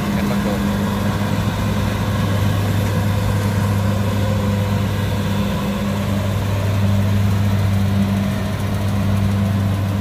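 Kubota combine harvester's diesel engine running steadily at a constant speed as the machine harvests rice, a low even hum.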